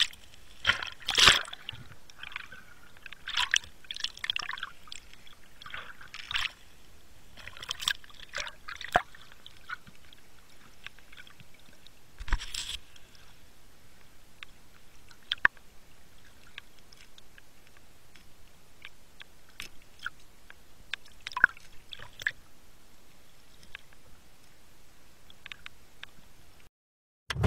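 Underwater water sounds: bubbles gurgling and sloshing past the camera in bursts through the first nine seconds or so, then quieter water with scattered sharp clicks.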